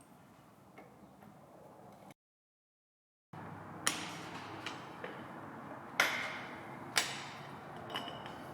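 Sharp metallic clicks and knocks of hand tools on bicycle parts during assembly, four separate clicks about a second apart, each ringing briefly. They come after a short gap of dead silence.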